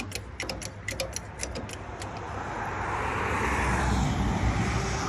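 A passing vehicle's engine and road noise, a steady rush that swells from about two seconds in and stays loud. A run of quick clicks fades out in the first second and a half.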